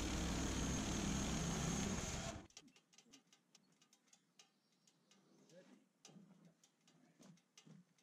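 Portable bandsaw sawmill running, its engine driving the blade through a log, until the sound stops abruptly about two and a half seconds in. After that it is near silence with faint scattered clicks.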